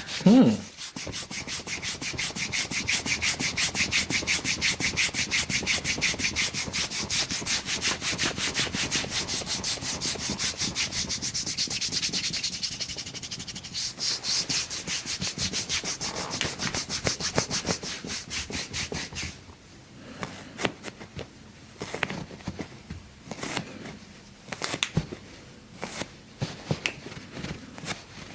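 Fast, even rubbing strokes, many a second, that stop suddenly about two-thirds of the way through. After that come a few scattered light knocks.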